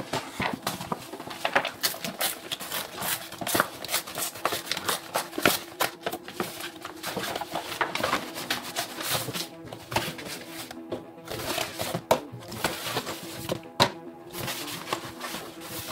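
Plastic courier mailer bag crinkling and crackling as hands tear it open and handle it, a dense run of irregular rustles.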